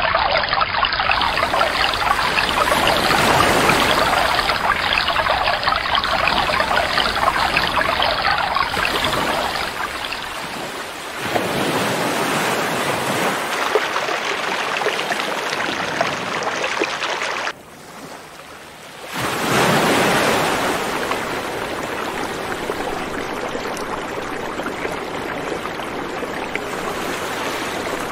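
Ocean surf: a steady rush of washing water with no distinct strokes. It drops away briefly about two-thirds of the way through, then comes back.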